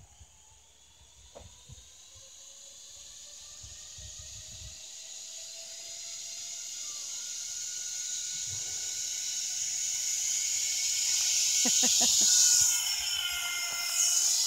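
Zip line trolley running down the cable: a whirring hiss with a whine that grows steadily louder as the rider approaches, with a short run of clicks near its loudest point about twelve seconds in, then the pitch drops as the trolley passes.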